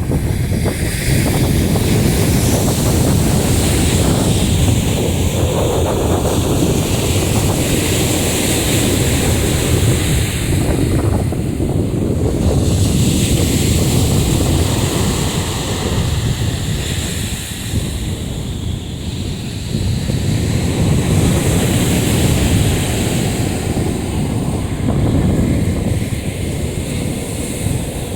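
Black Sea surf breaking on the shore, rising and falling as waves come in, with wind buffeting the microphone.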